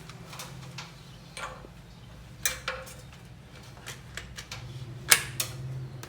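Sharp plastic clicks and knocks, about seven in all, as a new earth leakage circuit breaker is handled and pressed until it clips into place in the distribution box. The loudest snap comes about five seconds in, over a faint steady low hum.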